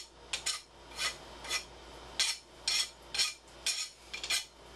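Hand file rasping across the cut end of an Acme lead screw to take off the burrs, in short strokes about two a second.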